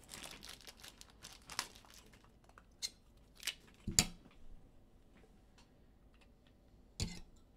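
Trading cards and packaging being handled: rustling and crinkling with light clicks, then a sharp knock about four seconds in and another near the end.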